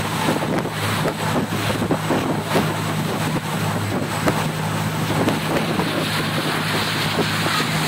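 Steady low engine drone of a ferry under way, with wind buffeting the microphone.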